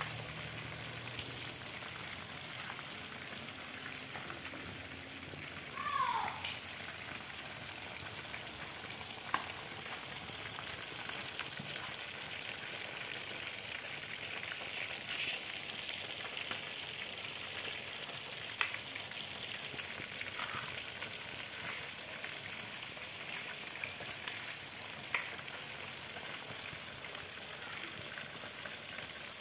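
Breaded chicken deep-frying in hot oil as the coating crisps: a steady sizzle with scattered sharp pops of spitting oil. A brief falling squeak sounds about six seconds in.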